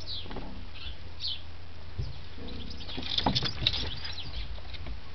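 Rabbits moving about in their cage: scuffling and pattering, with a flurry of sharp taps and rustles about three seconds in. Small birds chirp in the background.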